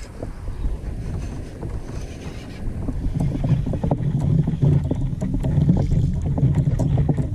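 A boat on the water: a steady low rumble with small knocks and clicks, and wind on the microphone.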